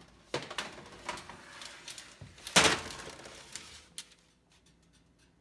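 Kitchen oven door and metal baking sheets being handled: a series of clanks and scrapes, with one loud bang about two and a half seconds in.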